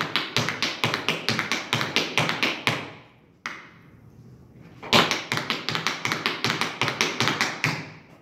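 Tap shoes striking a hard floor in fast jump shuffle steps: a quick, even run of taps about six a second, which stops just before three seconds in. A single tap follows about half a second later, then a second equally fast run starts about five seconds in.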